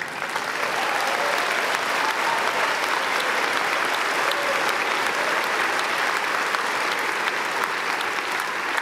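Large audience applauding, starting suddenly and holding steady.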